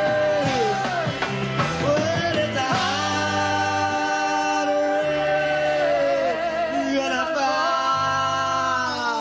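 Live rock band playing: long held notes that slide and waver in pitch over a steady bass line, with no words sung.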